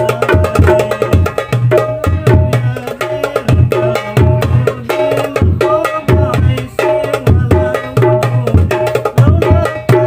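Hadroh percussion: a darbuka played by hand together with a rebana frame drum, in a lively rhythm of deep bass strokes and sharp slaps, the phrase repeating about every two seconds.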